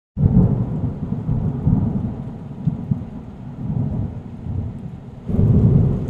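Thunder rumbling over rain, a storm sound effect, starting suddenly just after the opening and swelling into a louder rumble about five seconds in.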